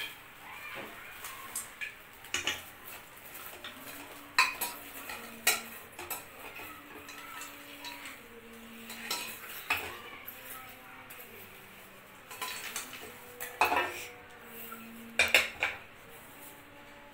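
Aluminium pressure cooker and a spoon clinking and scraping against a steel bowl as popcorn is tipped and scraped out. The clinks come irregularly, every second or two, and are loudest near the end.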